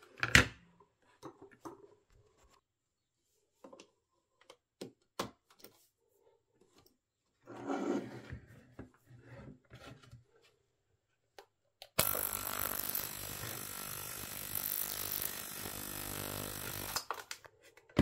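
Cheap ultrasonic cleaner's piezoelectric transducer buzzing, switched on with its tank still empty of water; the buzz starts suddenly, holds steady for about five seconds and cuts off. Before it, scattered clicks and a rustle of the plastic housing being handled.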